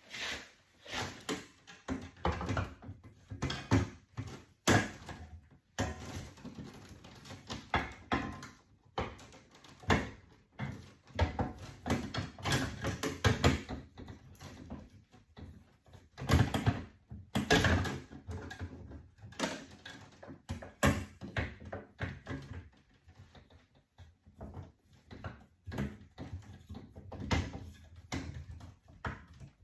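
Irregular knocks, clicks and clatter of a sheet-metal electrical panel cover being handled and fitted onto the panel.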